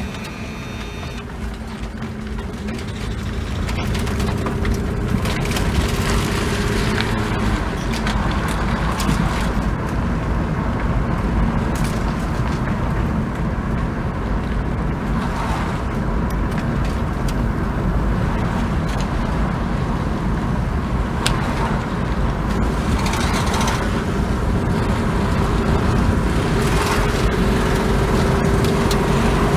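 2000 Mazda MPV's 2.5-litre V6 engine running steadily, with a leak at the exhaust manifold and an engine misfire.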